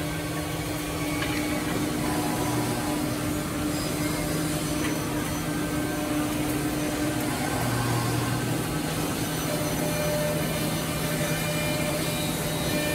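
Woodmaster WM-1500-3CNC three-head mortising machine running, its spindles cutting mortises into pine boards: a steady machine whine and hum, with a lower tone coming and going.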